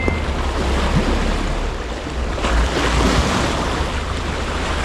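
Small waves washing over a rocky shore, with wind rumbling on the microphone; the surf grows louder about two and a half seconds in.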